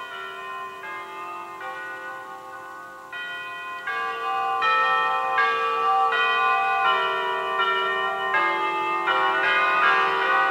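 Church bells ringing a sequence of notes, getting louder about three to four seconds in.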